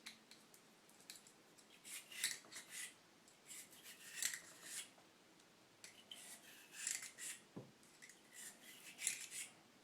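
A cleaning brush scrubbing in and out of the chambers of a .357 Smith & Wesson revolver's cylinder, in short bursts of rasping strokes every second or two.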